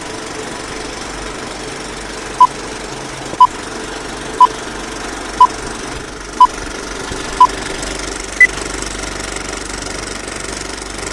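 Old film-leader countdown sound effect: a steady film-projector clatter and crackle, with a short beep once a second, six in a row, then a seventh beep at a higher pitch.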